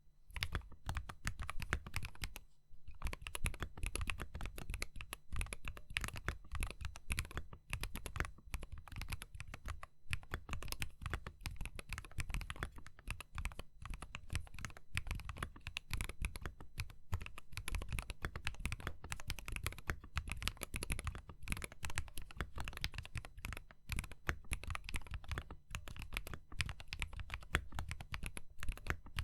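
Keys typed quickly and continuously on a custom chex68v5 mechanical keyboard, built with DUROCK full-POM switches with UHMWPE stems lubed with Krytox 205g0, MT3 keycaps, a copper plate and a gasket-mounted stainless steel case. There is a brief pause in the keystrokes about two and a half seconds in.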